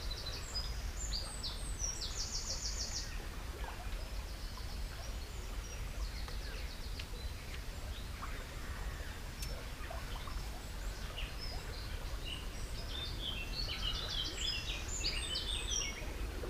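Small songbirds singing, with quick chirps and a fast trill near the start and a busier run of song near the end, over a steady low rumble.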